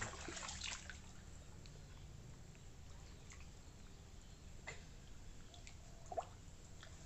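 Faint drips and small trickles of water with a few soft ticks, and one short louder sound about six seconds in.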